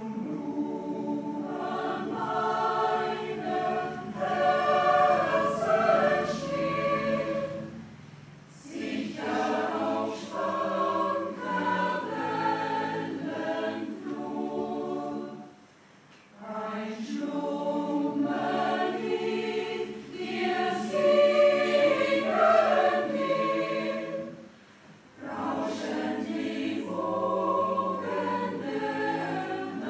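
Mixed choir of women's and men's voices singing in phrases, with brief pauses between phrases about 8, 16 and 25 seconds in.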